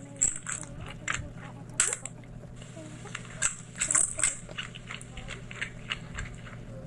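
Close-miked eating: crisp crunches and clicks of biting and chewing food, coming at irregular intervals, over a steady low hum.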